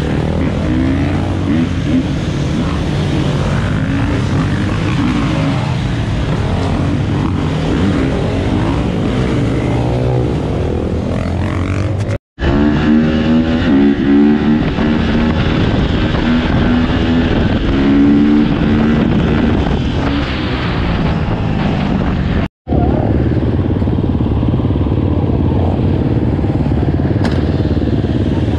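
Several dirt bike engines running and revving as a group of riders rides off together, the pitch rising and falling with the throttle. The sound cuts out for an instant twice, about twelve and twenty-two seconds in.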